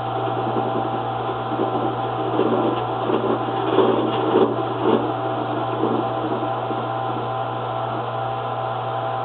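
Samsung washing machine running during a cycle, with a steady low hum and a constant whine over an uneven rattling, knocking noise that grows louder for a moment about four seconds in. This is the odd noise it makes during some cycles but not others.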